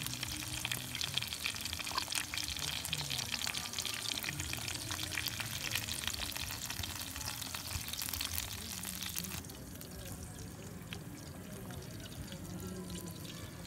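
Beef burger patties frying in hot oil in a shallow black pan, a dense crackling sizzle. The sizzle cuts off suddenly about nine seconds in, leaving a quieter background.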